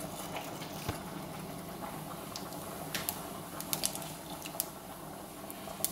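Cumin seeds sizzling in hot oil in a frying pan, a steady hiss broken by a scatter of sharp crackles and pops.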